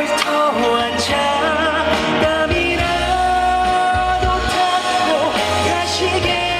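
Slow trot ballad performed live: a male singer's sustained notes with wavy vibrato over band backing music.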